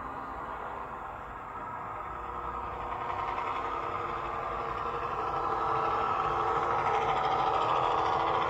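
Sound-fitted Bachmann OO gauge class 117 DMU model playing a recorded diesel multiple unit engine note through its small onboard speaker while running, growing steadily louder as the model comes close.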